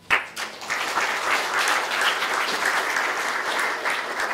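Audience applauding at the end of a talk, starting suddenly and easing off slightly near the end.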